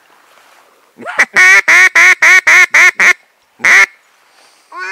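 Duck quacking: a rapid run of about eight loud, close quacks at about four a second, starting about a second in, then a single quack after a short pause.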